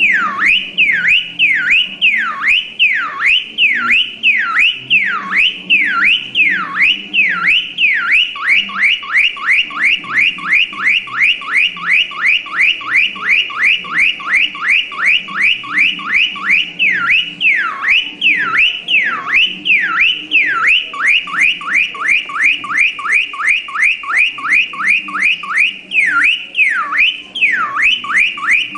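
Car alarm siren cycling through its tones: slow whoops falling in pitch, then a fast run of rapid chirps several times a second, then slow whoops again, repeating in a strictly regular pattern.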